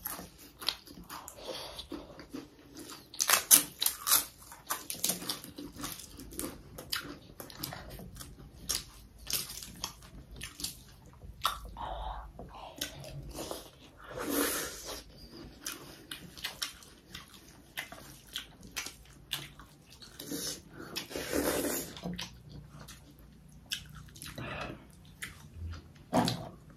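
People eating meat curry and rice close to the microphone: chewing and lip-smacking with many small clicks, and a couple of longer, breathier sounds partway through.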